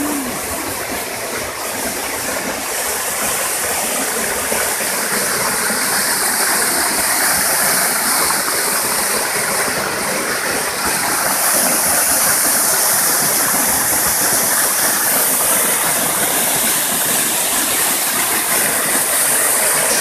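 Rushing water of a mountain stream and waterfall, a steady loud noise that grows a little louder about five seconds in.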